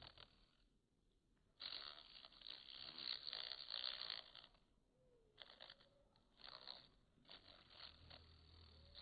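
Bumblebee foraging in a poppy flower: several bursts of scratchy rustling as it scrabbles among the stamens and petals, the longest about two seconds in. A low wingbeat buzz comes in near the end.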